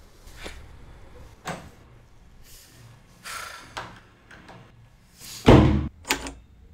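A wooden door with a round metal knob is shut hard: a loud slam about five and a half seconds in, then a shorter sharp knock from the knob and latch just after. A few fainter knocks and shuffles come before it.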